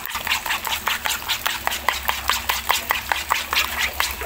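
Metal spoon beating raw eggs in a plastic bowl, clicking against the bowl in a quick, even rhythm of about five strokes a second.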